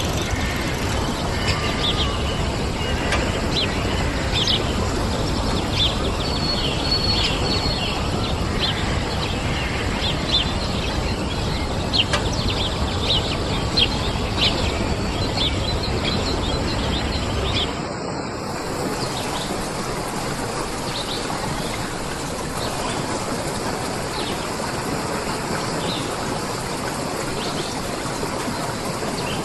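Many small birds chirping over a steady rushing noise. A little over halfway through it cuts abruptly to a softer, steady rush of running water with fainter chirps.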